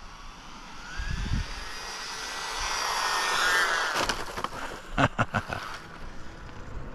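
Electric motor of a 1/14 scale RC rally car whining and rising in pitch as the car speeds up, then dropping away; a few sharp knocks follow about five seconds in.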